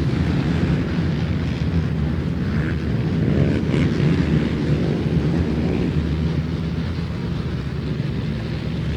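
A pack of racing ATVs running hard: a steady blend of many engines, none standing out.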